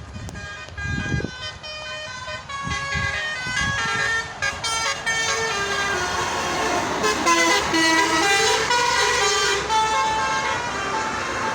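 Basuri telolet multi-tone horn playing a stepping tune of several notes at once, getting louder toward the end, with low vehicle rumble about one and three seconds in.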